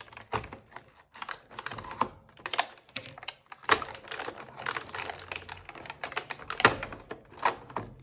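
Cardboard advent calendar door being pulled open and the toy's packaging handled: irregular crackles, taps and clicks, the sharpest about 3.7 and 6.7 seconds in.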